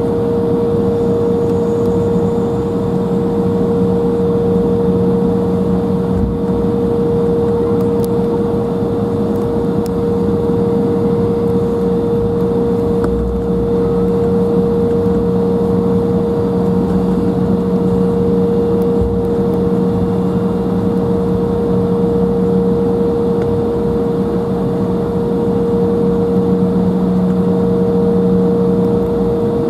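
Cabin noise of an Embraer 175 airliner under power: its GE CF34 turbofan engines and the airflow give a steady rush with a constant engine whine through it.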